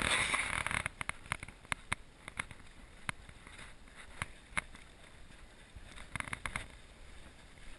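Water splashing irregularly as a swimmer kicks behind a kayak and pushes it along; a busy burst of splashing at the start, scattered sharp splashes after, and another cluster about six seconds in.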